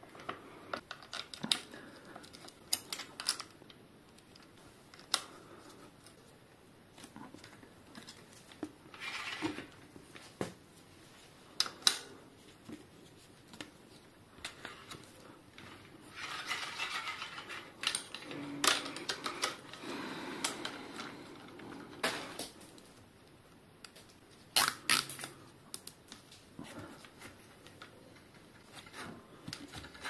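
Irregular sharp clicks and clinks of metal tools and bicycle brake parts being handled while a hydraulic disc brake is fitted, with a few longer scraping stretches about halfway through.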